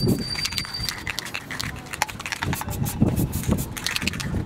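Aerosol spray paint can being shaken, its mixing ball rattling in quick, irregular clicks.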